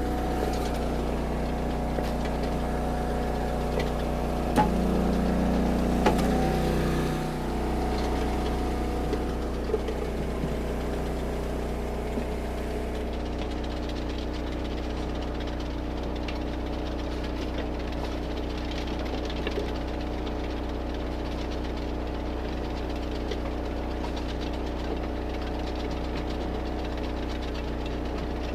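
Engine of the Eastonmade 22-28 hydraulic log splitter running steadily, with a louder stretch about five to seven seconds in and a few sharp cracks and knocks scattered through.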